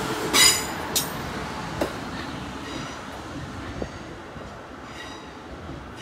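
Class 450 Desiro electric multiple unit rolling slowly past, its wheels giving a loud short high squeal about half a second in and fainter squeals later, with a few sharp clicks over rail joints. Under them runs a steady rumble that fades as the train moves away.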